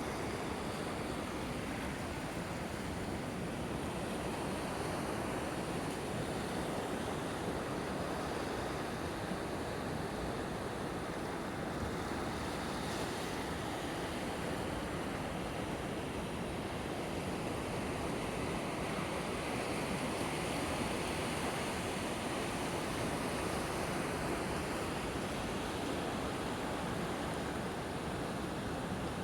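Ocean surf breaking on a beach: a steady rush of waves.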